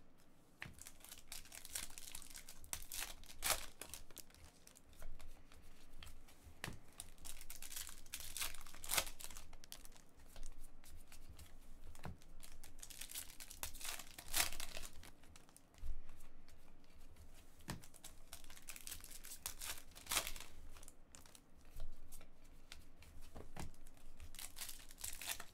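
Plastic wrappers of sealed hockey card packs crinkling as they are handled and sorted, with irregular crackles and clicks and the tearing of a pack being opened.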